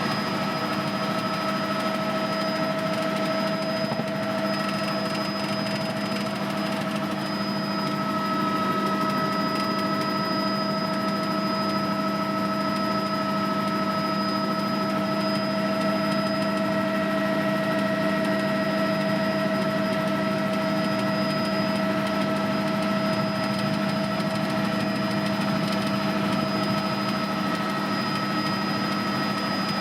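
Tour helicopter in flight, heard from on board: a steady engine and rotor drone with a high turbine whine, holding level throughout.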